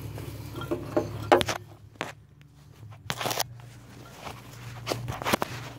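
Irregular clicks, taps and scrapes of hands and tools handling parts, over a low steady hum.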